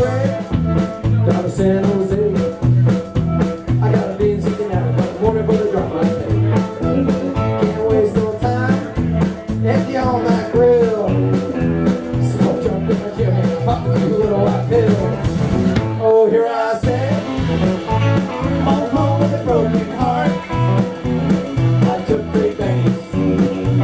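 Live band playing amplified music: electric guitars over a steady drum beat, with mostly no vocals. The beat drops out for a moment about 16 seconds in, then the band comes back in.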